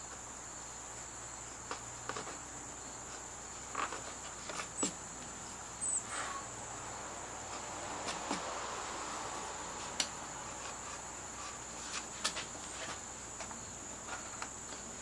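A carving gouge, pushed by hand, cutting into Alaskan yellow cedar: scattered short clicks and scrapes as the edge bites and chips come free, with a longer slicing cut about eight seconds in. Behind it runs a steady high-pitched insect drone.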